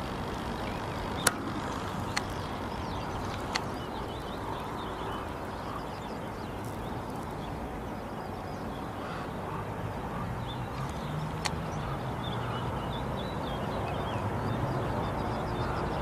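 Steady low outdoor rumble of field ambience, with a few sharp clicks: three in the first four seconds and one more near the middle. Faint high chirps come and go in the later half.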